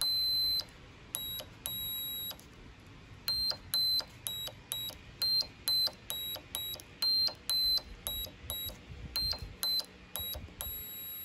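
Small electronic buzzer on a breadboard circuit, powered by a 9 V battery, beeping in many short, high-pitched bursts of varying length, about two a second, as its push buttons are pressed and released. Each button sends current to the buzzer through a different resistor: none, two 330-ohm resistors, or a 10K-ohm resistor.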